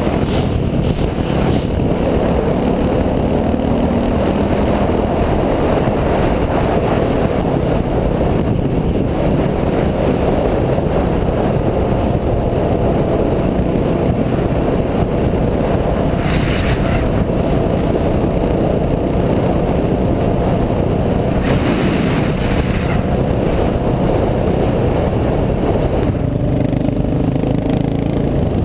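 Dirt bike engine running steadily under way, a loud constant drone with no pauses.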